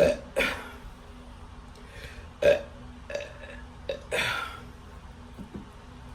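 A woman burping repeatedly from drinking carbonated sparkling water: a quick run of about five or six short burps over the first four seconds or so, a few of them longer and louder than the rest.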